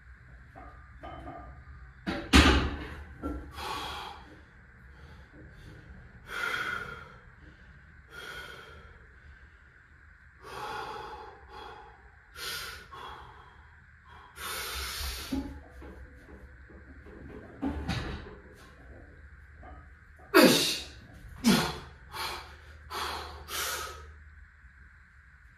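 A weightlifter's hard, sharp breaths and exhales, about one every two seconds, coming several in quick succession near the end, with a loud thump about two seconds in.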